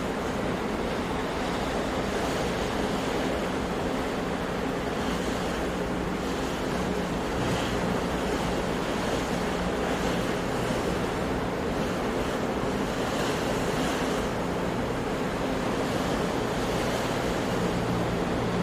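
Sea surf washing in a steady, unbroken rush of waves, with some wind on the microphone.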